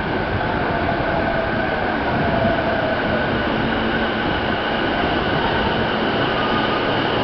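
Electric commuter train running at an underground station platform: a steady loud rumble of wheels and running gear with faint whining tones above it.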